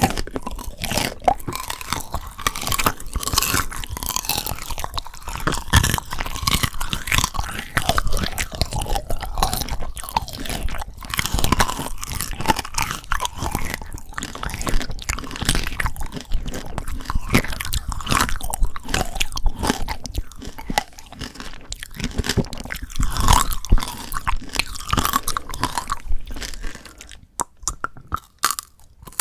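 Close-miked crunching and chewing of frozen Shine Muscat grape tanghulu: the hard candy shell crackles and breaks as the frozen grapes are chewed. The crunching thins out and quietens near the end.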